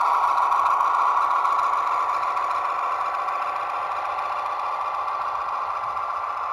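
Simulated diesel engine sound of an SNCF X4700 railcar, played by an ESU LokSound 5 sound decoder through the small speaker of a Jouef HO-scale model, running steadily and slowly fading as the model moves away.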